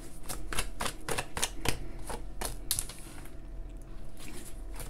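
A deck of oracle cards being shuffled by hand: a quick run of crisp card clicks, about five a second, that stops a little under three seconds in. Softer handling follows as a card is laid on the table.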